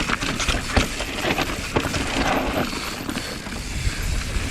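Mountain bike rattling down a steep, loose trail: tyres crunching over loose dirt and rocks, with many irregular clicks and knocks from the bike, over a low rumble of wind on the helmet camera.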